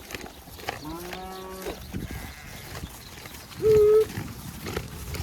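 Cattle bawling: a long, lower call about a second in, then a shorter, higher and much louder call near the four-second mark.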